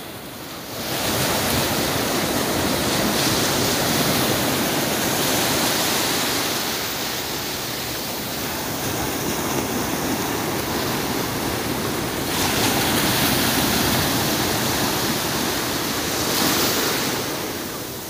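Surf on a sandy beach: small waves breaking and foam washing up and back over the sand, a steady rush that swells and eases several times.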